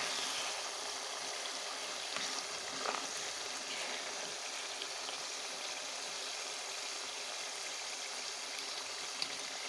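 Thick spinach curry simmering and bubbling in a clay pot, with a metal ladle stirring through it a few times. The curry has cooked down to the stage where the oil rises to the top.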